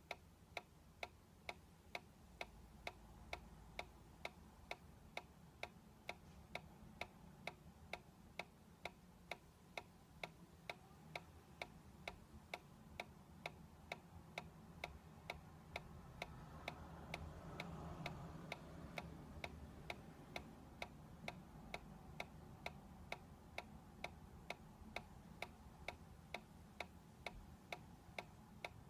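Solar-powered dancing cactus toy ticking steadily, about two sharp clicks a second, as its small drive mechanism pulses to rock it. A faint low rumble swells briefly around the middle.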